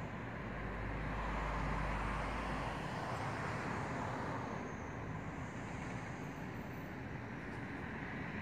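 Steady outdoor background noise, an even hiss with no bird calls, with a low rumble that swells and fades over the first three seconds.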